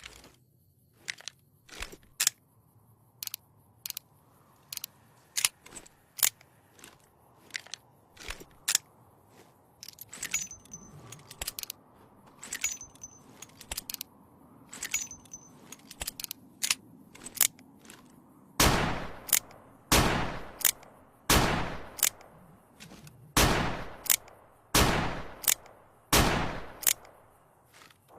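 Colt single action revolver: for most of the stretch, sharp separate metallic clicks of the action being worked. Then a string of much louder gunshots about a second apart, each followed by a short ring.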